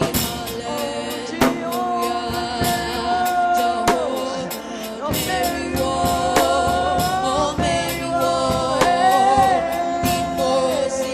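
Gospel worship music: voices singing long held, sliding notes over a band, with steady drum hits.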